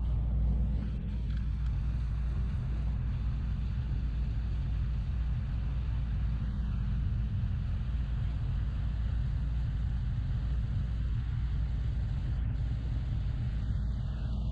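Steady low drone of a riverboat's engine while under way.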